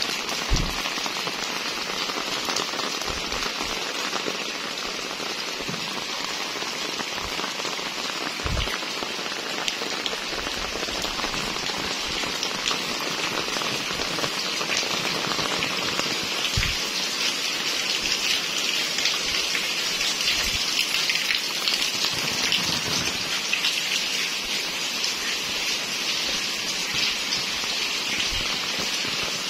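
Steady rain falling on wet concrete lanes and puddles, an even hiss throughout, with a few soft low thumps now and then.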